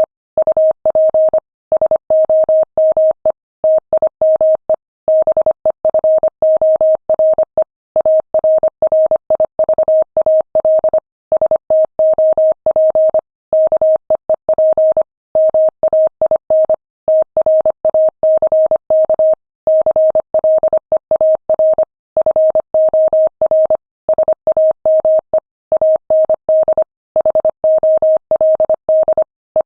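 Morse code sent at 25 words per minute: a single steady tone of about 600 Hz keyed on and off in quick dots and dashes, with short pauses between words.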